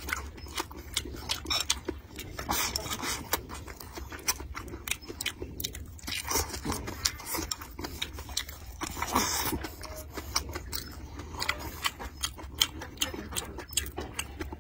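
A man chewing mouthfuls of rice and vegetables: wet chewing and lip smacks with many small clicks, a few moments louder than the rest.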